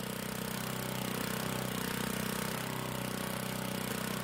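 3-horsepower Tecumseh small gas engine, taken from a lawn edger, running steadily at an even speed.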